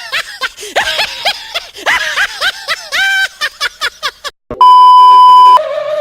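Talking hamster toy playing back laughter and chatter in a squeaky, sped-up voice. About four and a half seconds in, a loud steady beep lasting about a second cuts in, followed by a held high-pitched note.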